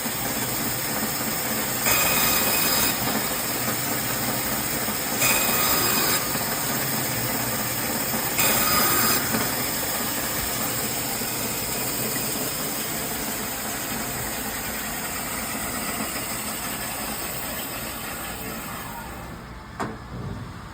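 BIRO 3334 band saw (3 HP motor, V-belt drive, stainless blade) running steadily with a whirring hum. Three times, about three seconds apart, it grows louder for about a second with a whining edge as the blade cuts through product set for 1-inch slices. Near the end it winds down, with a sharp knock.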